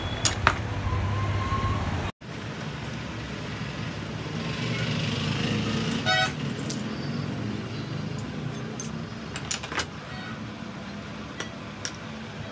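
Sharp metal clicks and taps from handling motorcycle shock absorber parts over steady street-traffic noise. A short vehicle horn toot comes about six seconds in.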